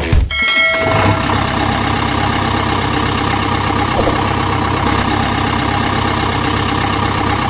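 Diesel engine idling steadily with an even, fast beat; it starts just after the music stops.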